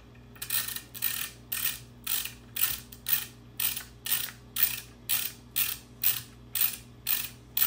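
Ratcheting T-handle tap wrench clicking as a tap is worked into a dowel-pin hole in an engine block, about two short bursts of clicks a second from the back-and-forth strokes. The tap is cutting smoothly, with no need to back it out.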